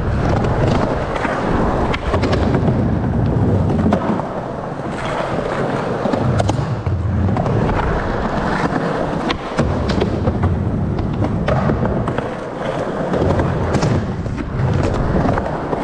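Skateboard wheels rolling over skatepark ramps in a steady rumble, with a few sharp clacks of the board landing or hitting coping.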